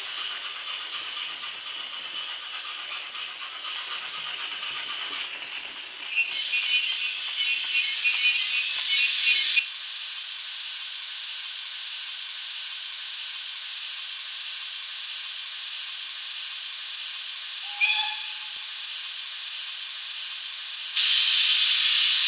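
Digital sound decoder of a Hornby Kidwelly Castle model steam locomotive, with the model's running rumble underneath. The sound grows louder, with a high steady squeal, until the rumble stops about ten seconds in. A steady steam hiss follows while the engine stands, with a short whistle toot about eighteen seconds in, and louder steam blowing off near the end.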